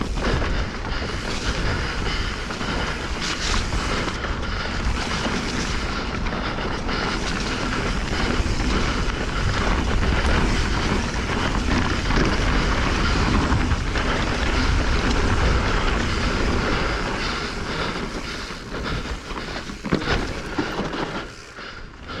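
Wind rushing over the camera microphone and tyre noise from a Specialized Stumpjumper Evo Alloy mountain bike descending dirt singletrack, with knocks and rattles of the bike over rough ground. The noise eases off briefly near the end.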